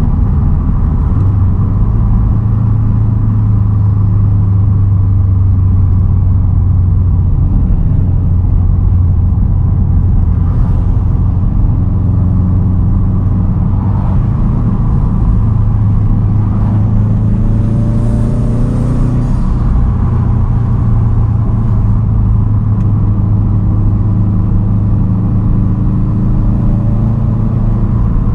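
2010 Subaru WRX STI's turbocharged 2.5-litre flat-four running through a straight-piped exhaust while cruising: a loud, steady low drone, with the engine note climbing in pitch a little past halfway and again near the end as it accelerates.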